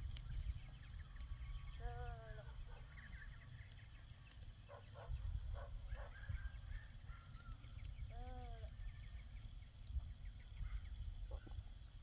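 Farm animals calling: three arching, pitched calls of about half a second each, a few seconds apart, with faint high chirps and a few clicks between them over a low rumble.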